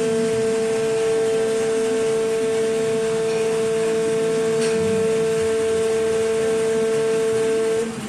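Injection moulding machine giving a loud, steady whine on one tone that cuts off abruptly just before the end, with a faint click about halfway through.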